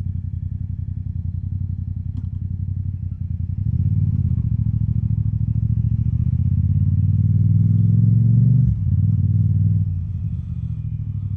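A 2018 Yamaha MT-07's 689 cc parallel-twin engine runs at low revs in traffic. It picks up on the throttle about a third of the way in and pulls harder to a peak past the middle. It then drops away sharply as the throttle closes, settling back low near the end.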